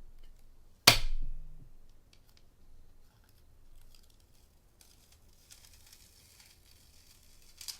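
Crafting materials being handled at a desk: one sharp snap or knock about a second in, then faint papery rustling near the end with a short click.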